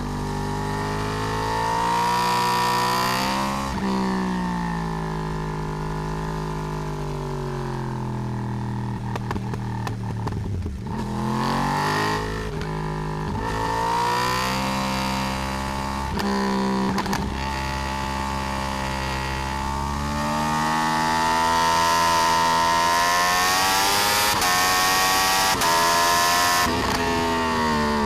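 Yamaha R1 RN22 crossplane inline-four with its uneven 'big bang' firing order, ridden hard. The engine note climbs and drops back several times as the bike accelerates and slows, heard from a mount on the swingarm. The longest, loudest pull comes near the end, and the note falls away at the close.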